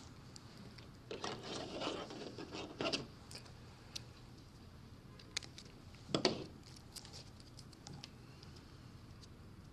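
Faint handling noise as hands stretch and wrap a grafting rubber band around an apple graft on a stick of scion wood: rustling and scratching with small clicks, loudest from about one to three seconds in and again briefly just after six seconds.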